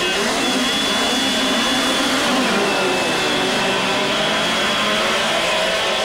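Several midget race car engines running together, their pitches overlapping and rising and falling as the cars go round.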